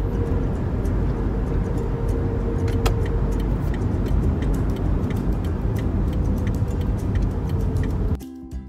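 Car driving, heard from inside the cabin: a steady low road-and-engine rumble. Near the end it cuts off and music begins.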